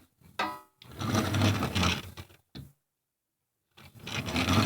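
Small plastic Lego car's wheels rattling as it is rolled back and forth on a hard surface, in two stretches of about a second each.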